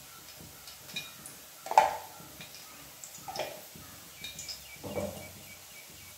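Steel spoons knocking and clinking against an aluminium pressure cooker a few times as ghee is tapped off into it, the sharpest clink about two seconds in.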